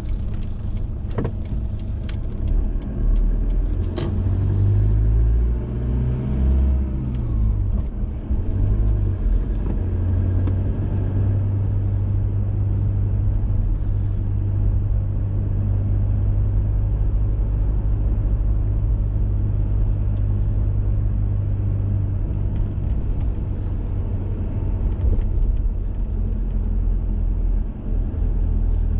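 Car engine and road noise heard from inside the cabin, a steady low drone, with the engine pitch changing as the car speeds up between about four and seven seconds in. A few sharp clicks sound near the start.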